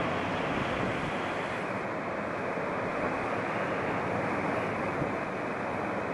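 Sea surf breaking and washing on shoreline rocks, a steady rushing noise.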